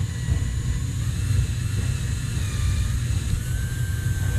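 Power drill running under load as its bit drills out the stripped threads of a screw hole in a paintball marker body: a steady motor whine over a low rumble, dropping a little in pitch about three seconds in.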